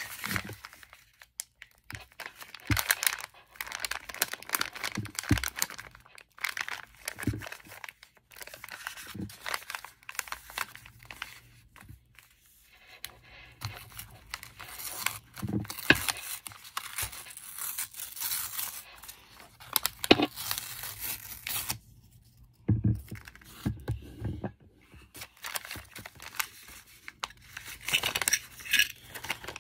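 Homemade paper blind bag, made of lined notebook paper, being torn open and crinkled by hand in short, irregular rips and rustles, with a few soft knocks against the table.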